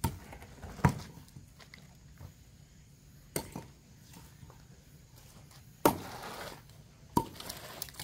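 Axe chopping into a firewood log: five sharp strikes at uneven intervals, the loudest about a second in.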